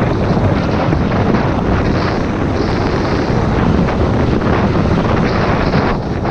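Wind buffeting a helmet-mounted camera's microphone during a downhill run on snow: a loud, steady rushing.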